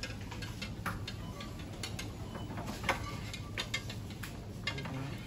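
Supermarket ambience: a steady low hum with scattered light clicks and taps, one louder click about three seconds in.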